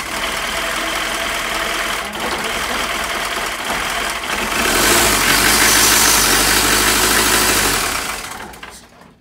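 Mitsubishi 4D56 2.5-litre four-cylinder diesel running on its first start after two years standing, with a new timing belt and rockers fitted. It gets louder about halfway through, then winds down and stops near the end.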